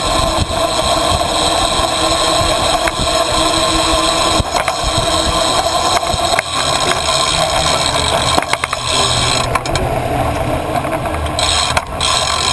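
Bicycle being ridden over paving, heard through a camera mounted on the bike: a steady rumble and rattle with several sharp knocks as it rolls over bumps and kerb edges. Road traffic runs alongside.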